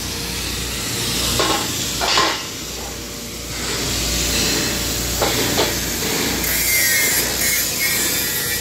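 Steady hiss and crackle of arc welding in a steel fabrication shop, broken by a few short knocks of metal.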